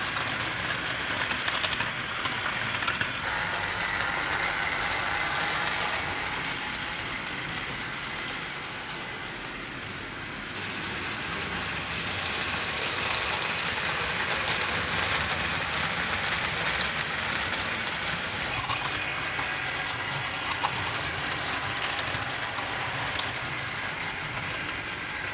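Tri-ang 00 gauge model trains running on the track: the steady whir of the locomotive motors with a continuous rattling clatter from the coaches' original wheels. The noise is typical of these vintage coaches.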